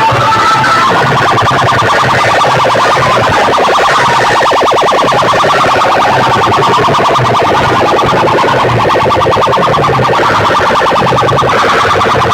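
Loud music from large DJ sound-system speakers, with a rapid buzzing pulse running through it.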